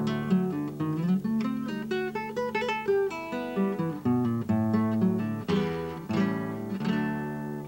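Solo classical nylon-string guitar, fingerpicked: a quick melody of plucked notes over ringing bass notes.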